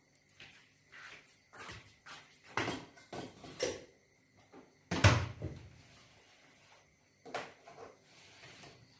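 Knocks and clatter of an electric rice cooker being handled, a string of short knocks with the loudest about halfway through, then a click as its lid is shut near the end.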